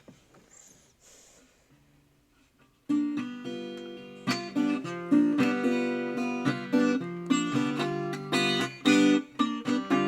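Guitar playing the opening of a blues song, chords picked and strummed in a steady rhythm, starting about three seconds in after a few faint small noises.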